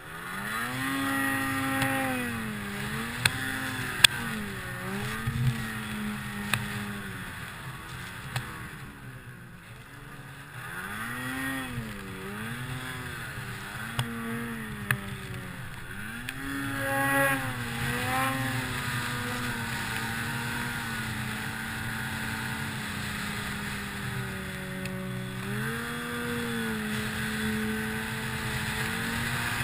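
Ski-Doo Summit 163 800 cc two-stroke snowmobile engine revving up and down again and again as the sled is throttled through deep powder, with a few sharp ticks.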